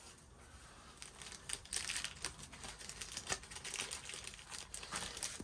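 Faint plastic wrapping crinkling and rustling, with small irregular clicks, as a brand-new car badge is unwrapped and handled.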